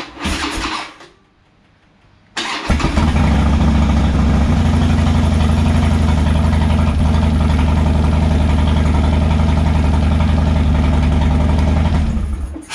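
Harley-Davidson Dyna's V-twin started from cold on the electric starter. It catches almost at once after a brief crank and runs at a steady idle, then stops near the end. It fires up without needing the throttle goosed, which the owner credits to the new plug leads or spark plugs.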